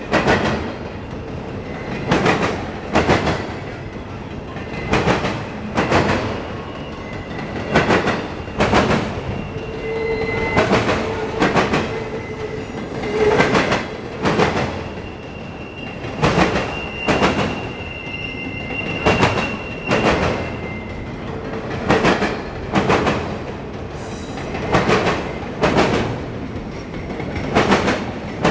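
Autorack freight train rolling past, its wheels clacking over rail joints in pairs as each car's trucks go by. A thin wheel squeal comes and goes in stretches.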